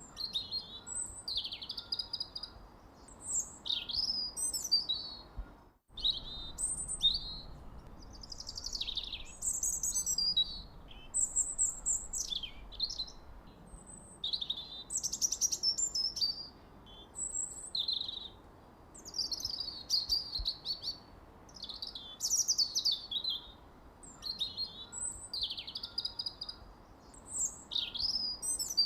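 Songbird chirping and singing in short, quick phrases of high whistled notes, sweeps and trills, a phrase every second or two with short gaps between. The sound cuts out for an instant about six seconds in.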